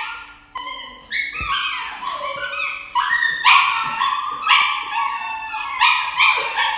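A dog crying over and over while held for an injection in the scruff of its neck. It gives high-pitched whimpering yelps, one every half-second to second, each rising and then held, louder from about halfway through.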